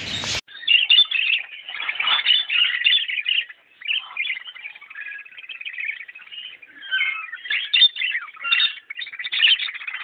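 A flock of caged cockatiels chirping and chattering all at once, a dense run of overlapping high calls. It begins suddenly about half a second in.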